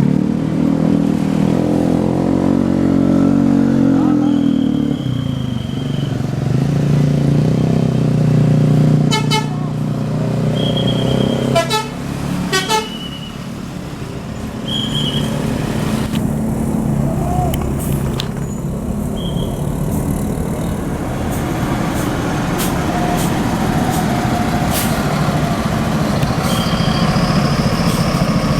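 Tour buses passing with their engines running. A multi-tone telolet horn plays a shifting melody in the first few seconds. Short high tones and a few sharp clicks sound now and then over the engine noise.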